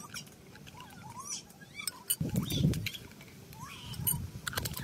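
Farm animals calling: short chirping calls throughout, and a low, rough call about two seconds in that is the loudest sound. Light clicks of a knife and spoon against a plastic cutting board and dish.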